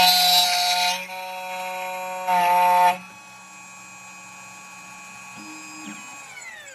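2M2 Tank 2 Pro CNC key cutting machine's spindle running with a steady whine, cutting the key blank twice with loud grinding passes: once in the first second and again about two and a half seconds in. Near the end the spindle winds down with a falling whine.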